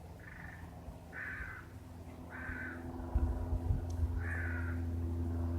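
A crow cawing four times, harsh calls a second or two apart, over the low steady drone of a light aircraft's engine that grows louder in the second half.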